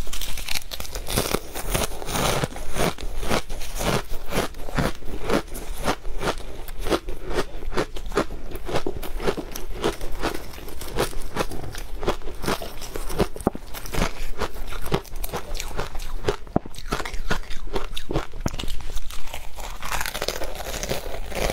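Close-miked crunching and chewing of shaved ice topped with matcha powder: a dense, continuous run of crisp crunches as mouthfuls of ice are bitten and ground between the teeth, with fresh bites at the start and near the end.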